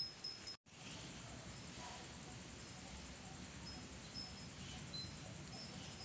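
Oriental magpie-robin calling with short, high whistled notes. A few clearer notes open it, the sound drops out for an instant, and faint scattered notes follow over a steady background hiss.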